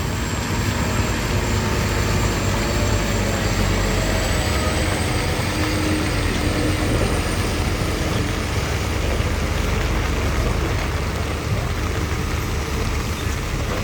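Heavy trucks passing on the road, engines running with a steady low rumble.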